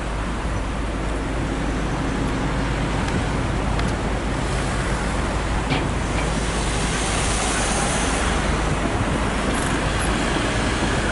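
Steady road traffic: cars and trucks driving past.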